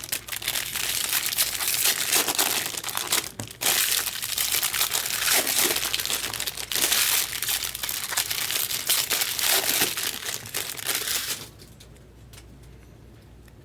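Plastic wrapping of trading-card packaging being torn open and crumpled: dense crinkling and tearing with a brief pause about three seconds in, stopping about a second and a half before the end.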